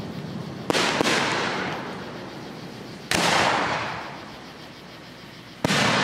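Aerial firework shells bursting: a close pair of bangs about a second in, another about three seconds in and one near the end, each trailing off in a long rolling echo.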